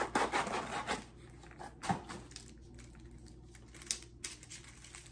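Paper packaging rustling loudly as it is opened, then a sharp knock about two seconds in and a few light plastic clicks as a plastic clothes-peg hanger is handled.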